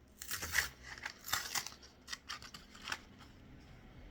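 Several short bursts of crinkling and rustling as a Pokémon card pack's wrapper is handled and opened.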